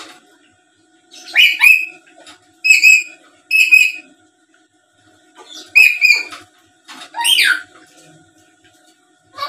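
Black-capped lory parrot giving a series of short, loud, harsh squawking calls, five or six in all. The last call slides down in pitch.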